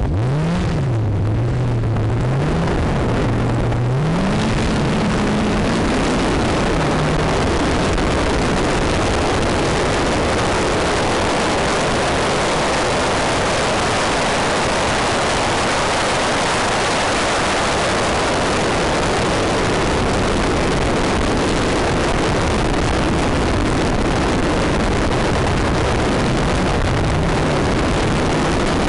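Rally car accelerating hard, its engine note climbing and dropping back with each of about three gear changes in the first five seconds, then a steady loud rush of engine, tyre and wind noise at speed.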